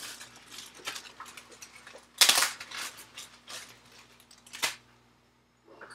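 Handling noise as a piece of hookup wire is fetched and handled: scattered light clicks and rustles, with a louder rustle about two seconds in and a sharper one a little before five seconds. A faint steady hum runs underneath and stops near the end.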